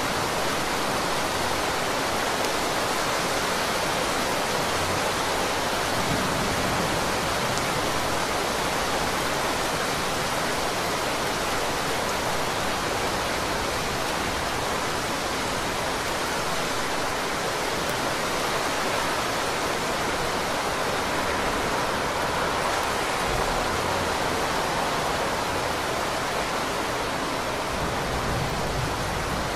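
Heavy rain falling in a steady, unbroken hiss.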